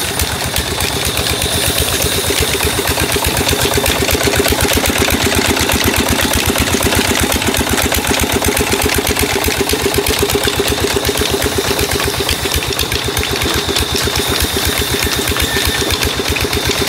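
Old stationary diesel engine running steadily with a fast, even beat as it drives a long flat belt to a saw machine. A thin, steady high whine sits above it.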